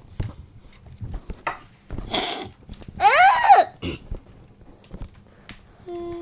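A child's voice making wordless noises: a breathy hiss, then about three seconds in a high cry that rises and falls. A short steady tone sounds near the end.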